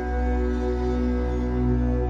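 Slow ambient background music of long held tones, with a low bass note coming in at the start.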